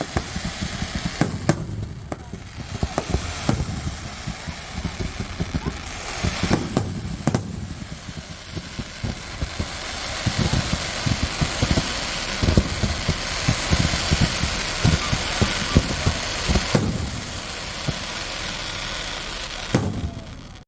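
Fireworks display: separate bangs of bursting shells, building about halfway through into a dense crackling barrage with rapid low booms, then easing off near the end.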